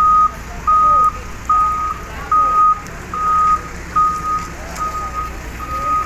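Backhoe loader's reversing alarm beeping: eight even beeps at one pitch, about one every 0.8 s, over a low engine rumble.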